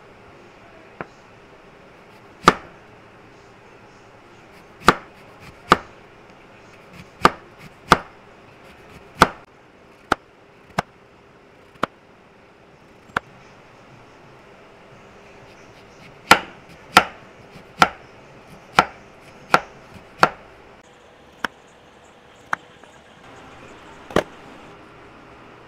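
Knife slicing a lemon into rounds on a wooden cutting board: a sharp knock of the blade meeting the board with each slice, about twenty in all, spaced unevenly, with a quicker run of six slices past the middle.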